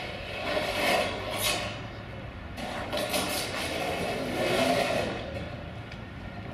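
Scraping and grinding of a Siemens Imperio tram's steel wheels rolling down the metal unloading ramp onto the rails, in uneven swells that ease off near the end.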